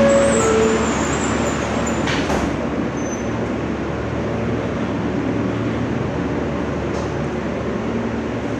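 Interior noise of an R160 subway car: a short two-note falling tone at the start, a sharp knock about two seconds in, then a steady rumble and hiss of the car.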